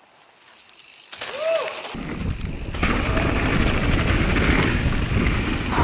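Mountain bike rolling fast down a dirt trail covered in dry leaves: tyres crunching through the leaves and the bike rattling over the bumps, with wind buffeting the action camera's microphone. The riding noise comes in suddenly about two seconds in after a quieter start.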